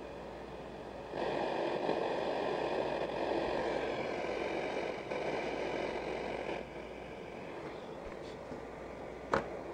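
Static hiss from a Lenoxx Sound TV-36 portable TV's speaker with no station tuned in. The hiss gets louder and rougher from about a second in until about six and a half seconds, then drops back, and there is one sharp click near the end.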